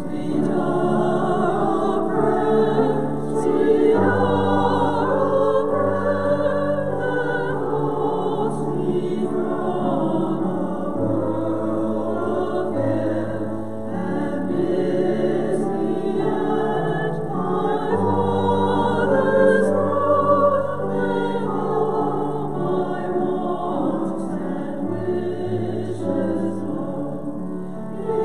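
Choir singing with vibrato over held bass notes.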